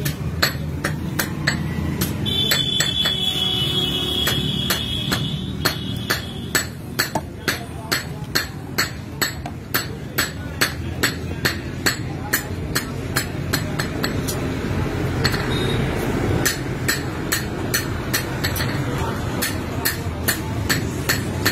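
Steady rhythmic tapping, about two sharp knocks a second, from batasha making: a stick knocking on the syrup vessel or its spout so that sugar syrup drips out drop by drop onto the plates.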